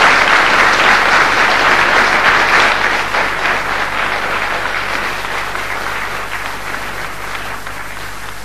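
Theatre audience applauding, the clapping gradually fading away.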